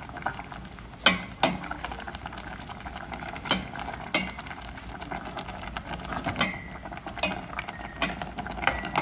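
Metal spoon stirring vegetables in a stainless steel pot, knocking against the pot about eight times, a few knocks leaving a brief ring, over the bubbling of the steaming pot.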